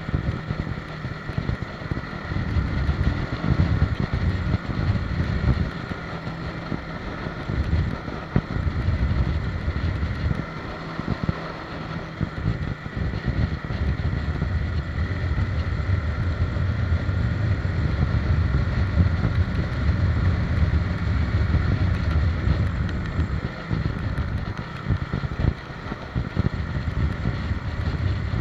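Motorcycle riding along at steady speed, its engine running under heavy wind buffeting on the microphone.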